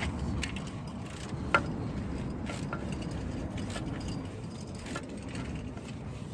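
Scattered light metallic clicks and clinks of hand tools on the alternator's mounting bolts, the sharpest about a second and a half in, over a steady low rumble.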